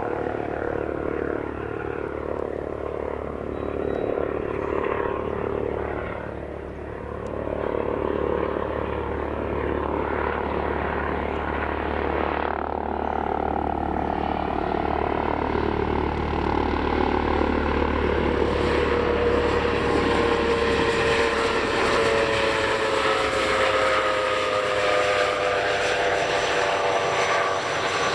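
Aircraft at an airfield: a light propeller plane's engine drone, then an Airbus H145 D3 helicopter approaching. The helicopter grows louder in the second half, with a whine whose tones fall slowly in pitch over the last several seconds.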